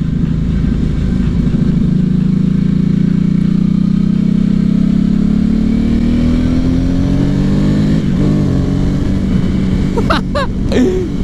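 Ducati Hypermotard 796's air-cooled L-twin, fitted with a Termignoni exhaust, running under way. The engine note holds steady, then rises gradually as the bike accelerates. A few brief sharp sounds come near the end.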